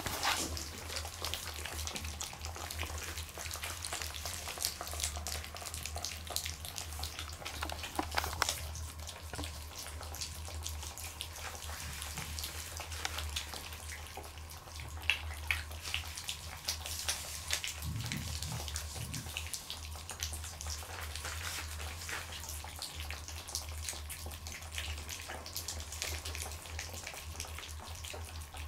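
A litter of Cotton de Tulear puppies eating soft food together from one plate: a steady stream of small wet smacking, lapping and chewing clicks.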